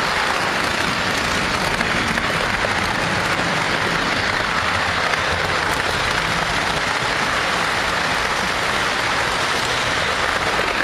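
O scale toy train running on three-rail metal track, heard close up from the train itself: a steady, dense rattle of the wheels on the rails that does not let up.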